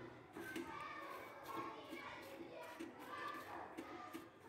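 Faint background chatter of children's voices, talking and playing, with no nearby speech.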